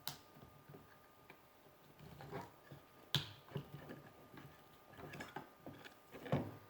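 Hands working on a plush animatronic toy: scattered sharp plastic clicks, the loudest about three seconds in and another near the end, among soft rustling and handling of fabric and stuffing.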